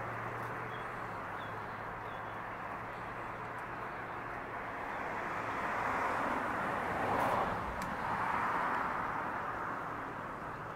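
Road traffic: a passing vehicle's tyre noise swells and fades about two-thirds of the way through, over a steady low hum.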